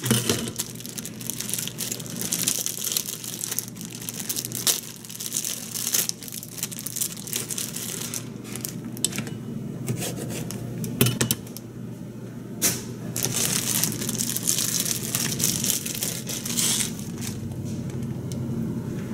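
Santoku knife cutting through a bunch of enoki mushrooms in their plastic bag on a plastic cutting board, with repeated sharp knocks of the blade on the board and the plastic packaging crinkling as it is handled and torn away. A steady low hum runs underneath.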